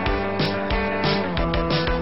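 Music with a steady beat and held chords.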